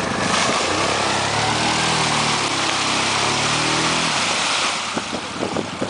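Yamaha Grizzly 700 ATV's single-cylinder engine revving, its pitch climbing for about three seconds and then dropping off about four seconds in, under a steady hiss. A few short knocks follow near the end.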